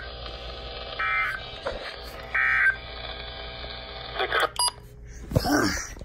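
Weather radio receiver sounding the Emergency Alert System end-of-message data bursts: short raspy bursts of digital tones about a second and a half apart, over the receiver's steady hum and hiss. The bursts mark the end of the warning broadcast. A few clicks come about four and a half seconds in, and a brief voice sound near the end.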